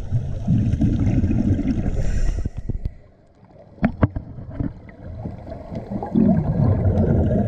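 Scuba diver's exhaled breath bubbling out of the regulator underwater, a low gurgling in two bursts a few seconds apart, with a few sharp clicks in the quieter gap between them.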